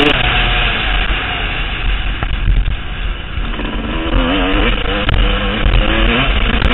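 Motocross bike engine revving up and down while riding, over a loud rushing noise.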